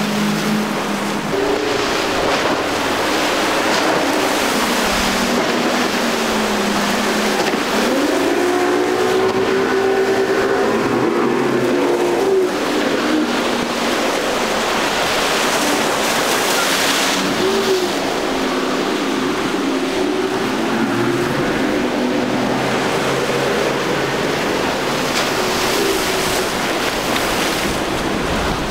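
Outboard engines of center-console boats running at speed through rough inlet water, with the hiss of spray and waves. The engine note rises and falls as the boats work through the chop.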